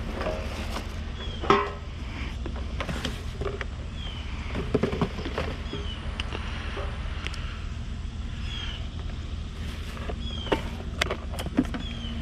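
Vehicle driving with a steady low rumble and hum, with short high squeaks recurring every second or two and scattered knocks and rattles.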